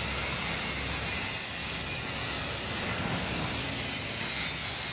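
Steady fabrication-shop noise: a continuous hiss over a low machinery rumble, with no breaks.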